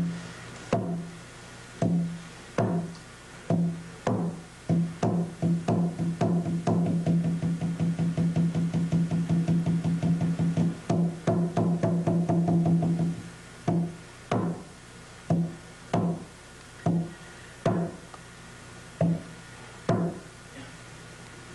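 Tibetan ritual drum played in the traditional puja pattern. Separate beats speed up into a fast, continuous roll, then slow back down to single strokes that stop near the end.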